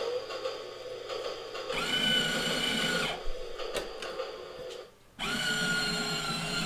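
Battery-powered ride-on toy train's electric motor whirring steadily as it runs along its plastic track, with a low rumble of the wheels. It starts about two seconds in, cuts out briefly near five seconds, then runs again.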